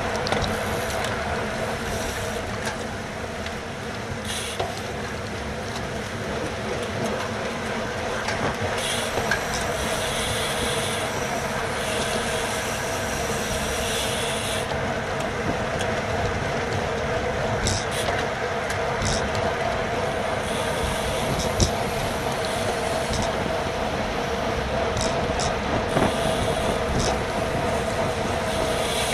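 Steady rush of wind and road noise on a racing bicycle's GoPro at speed, with patches of higher hiss and a few short clicks from the bike.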